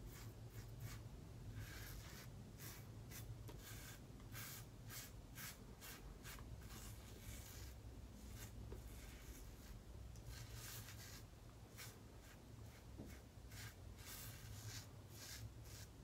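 Safety razor scraping through lathered stubble on the cheek, a faint run of many short, quick strokes.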